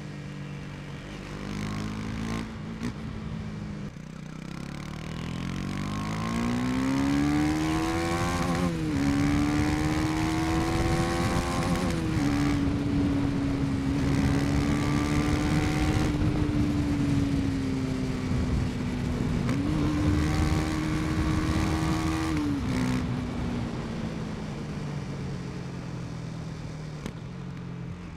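KTM Duke 250's single-cylinder engine pulling up through the gears: its pitch climbs from about four seconds in and dips sharply at each of two upshifts. It holds steady for a while, then falls away as the throttle closes near the end.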